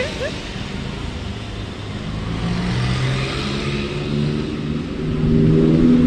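Busy street traffic: cars and motorbikes passing close by. An engine grows louder about five seconds in.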